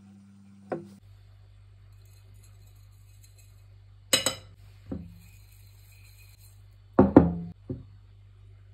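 Knocks and clinks against a ceramic dish as peeled hard-boiled eggs are handled in it, each ringing briefly. There is one about a second in, two around four to five seconds in, and a quick cluster of three near seven seconds.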